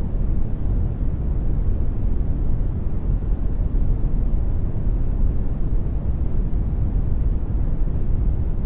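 Generated brown noise: a steady, deep rumbling hiss, strongest in the low end, with no changes.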